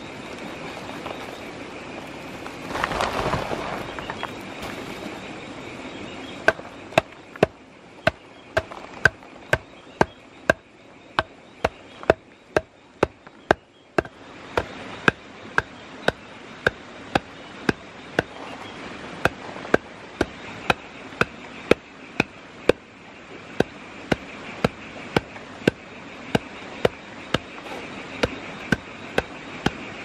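Wooden stick pounding dry clay lumps on a leaf to crush them to grit: sharp knocks at about two a second, starting about six seconds in. A short rustling swell comes before the pounding, and a faint steady insect drone runs underneath.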